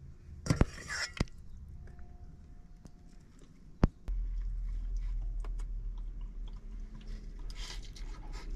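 A person eating a meal of vegetables and rice, with a few sharp utensil clicks and chewing. About four seconds in, a steady low rumble takes over.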